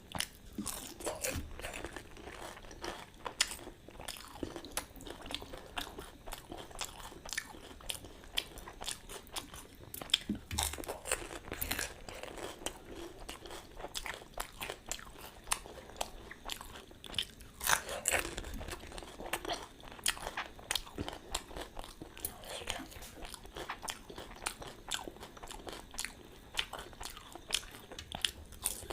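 Close-up crunching and chewing of panipuri: crisp, hollow fried puri shells filled with flavoured water cracking between the teeth, bite after bite, with rapid crackles and a few louder bites.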